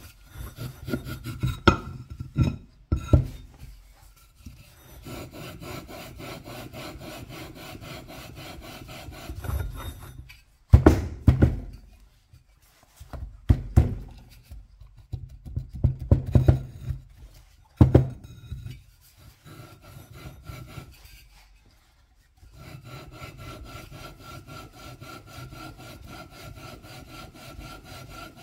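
Steel crankshaft taper of an IMZ Ural M67 being lapped into the flywheel's taper by hand: the shaft is twisted back and forth in its seat, giving a steady gritty metal-on-metal rasp. In the middle stretch come several louder metallic knocks, with short pauses between spells of rubbing.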